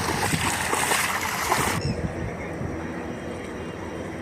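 Wind rushing over the microphone with water sloshing, breaking off suddenly about two seconds in and leaving a quieter low rumble.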